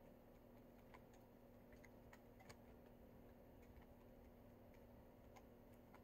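Near silence: a faint steady hum with scattered faint, irregular clicks.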